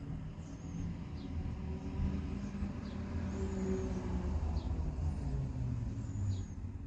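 A motor vehicle passing on a road, a low engine and tyre rumble that swells through the middle and eases off. Faint, short high bird chirps recur every second or so over it.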